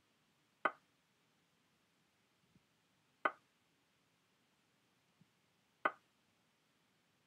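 Chess website's piece-move sound effect: a sharp wooden click as each move is played in the game replay, three times at an even pace about two and a half seconds apart, with a much fainter tick shortly before the second and third.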